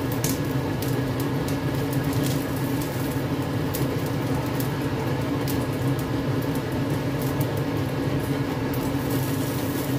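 Steady mechanical fan hum, with a few sharp crackles and pops from hot oil in a wok where chicken pieces are frying.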